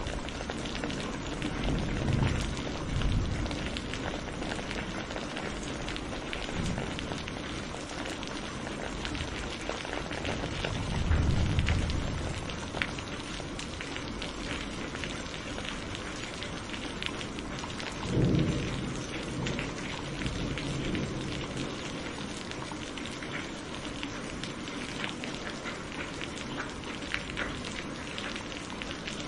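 Steady rain falling, with three low rumbles of thunder, at about two, eleven and eighteen seconds in; the last one sets in most sharply.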